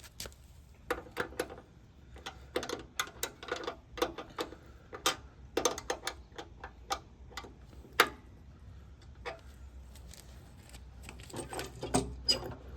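Socket wrench ratcheting in short runs of sharp clicks as a bolt is tightened, with quicker clicking near the end.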